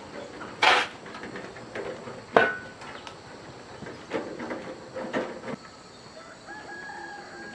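Scattered knocks and clicks, the sharpest about two and a half seconds in with a brief ring, and a faint drawn-out tone near the end.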